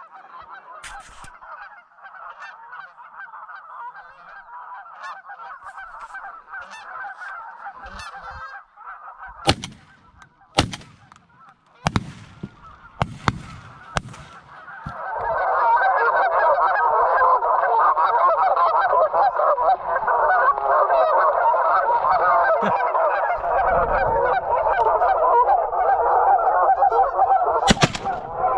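A large flock of geese honking continuously, much louder from about halfway through. Several sharp cracks come in the middle, and shotgun shots are fired near the end.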